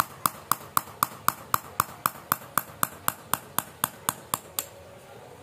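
Hammer tapping a tool against a Toyota Kijang Kapsul power steering worm housing, even blows about four a second with a short metallic ring on each, to loosen a part in place of the proper key. The taps stop a little before the end.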